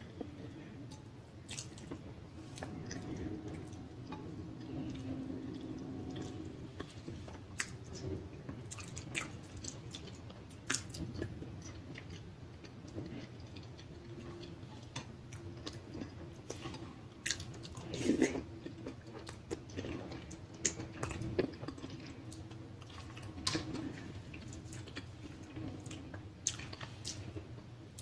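Close-miked chewing and wet smacking of saucy food, with scattered sharp clicks from bites and lip smacks.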